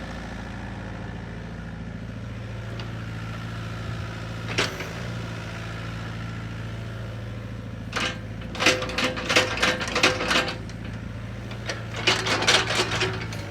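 John Deere 60D mini excavator's diesel engine idling steadily. It is joined by a single sharp click a few seconds in, then two bursts of rapid metallic clanks and rattles in the second half.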